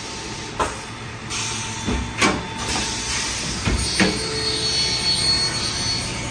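Scotchman GAA-500-90 automatic circular cold saw running through its cycle: a steady machine hum with several sharp knocks and short hisses from the clamps and feed. A thin high whine comes in about four seconds in and fades a second or so later.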